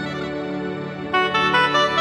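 Background music: a keyboard melody over a steady low drone, with new, louder notes coming in about a second in.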